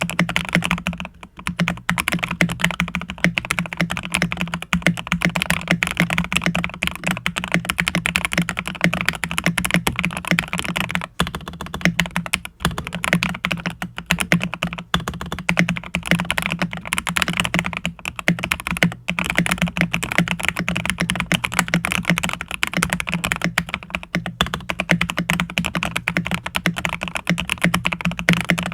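Fast, continuous typing on a CIY GAS67 mechanical keyboard with factory-lubed Gateron Oil King linear switches, a polycarbonate plate and Akko ASA-profile keycaps, foam- and tape-modded for a deeper sound. The keystrokes come with a strong low thud under the clack, with a few brief pauses.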